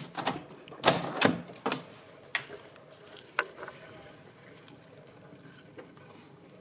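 A quick run of sharp clicks and knocks from a back door and the beaded string curtain hung in its opening as a person pushes through and steps out. The loudest knocks come about a second in, and after three or four seconds only a faint steady background is left.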